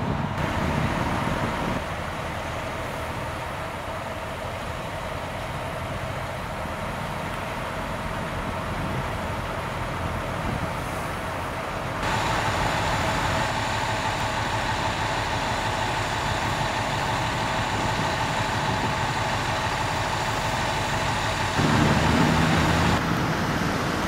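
Idling fire ladder truck engine: a steady drone carrying a few constant tones. It steps up in level about twelve seconds in, and a deeper rumble joins near the end.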